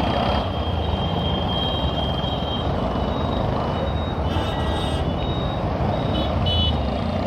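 Single-cylinder engine of a Bajaj CT 125X motorcycle running steadily while riding in slow, dense traffic, with road and wind noise. Short high-pitched horn beeps from other vehicles sound a few times, around the middle and again near the end.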